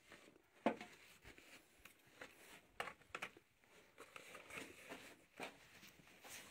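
Faint, irregular clicks, knocks and scuffs of someone moving about on a rocky mine floor, with handling noise on the phone; the sharpest knock comes about a second in and a few more follow near the middle.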